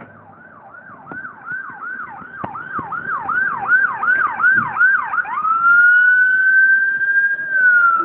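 Emergency vehicle siren in a fast yelp, about three sweeps a second, growing louder. About five seconds in it switches to a long wail tone that rises, holds, then starts to fall near the end.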